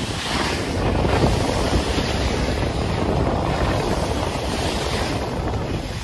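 Water rushing and spraying along the hull of an IMOCA 60 racing yacht sailing fast, with wind buffeting the microphone; a steady rushing noise.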